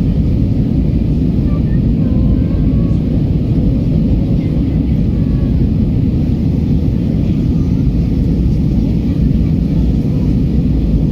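Steady cabin roar inside an Airbus A319 airliner in flight: its jet engines and airflow making a deep, even rumble.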